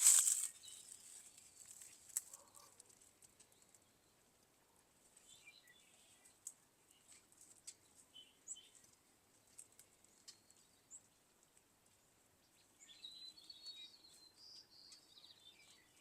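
Faint birds chirping now and then, with a longer stretch of song near the end. A short noisy burst right at the start and a few faint clicks.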